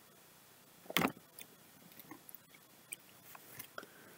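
Faint, scattered clicks and short scrapes of coloring supplies being handled, with one louder sharp tap about a second in.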